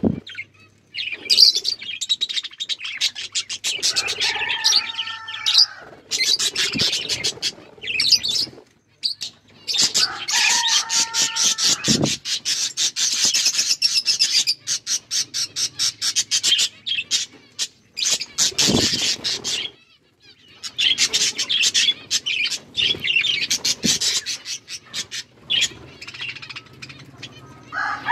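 Budgies chattering and chirping in a rapid, continuous warble, with a few lower, drawn-out calls among it.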